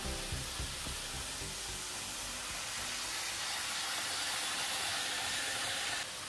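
Steady whirring hiss of N-gauge model trains running on the layout's track. It grows slightly louder for a few seconds as a Shinkansen set runs by, then drops back near the end.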